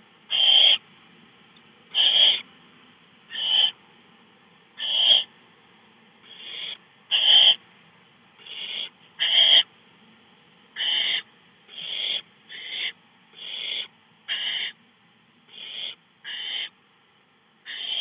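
Barn owl nestlings giving their rasping, hissing begging calls (the "snore" call), about one call a second, some louder and some fainter as different owlets call in turn.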